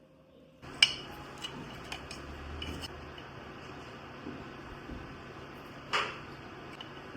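Kitchen dishes and utensils clinking and tapping against each other: a sharp clink just under a second in, several lighter taps, and a ringing clink near six seconds, over a steady background hiss.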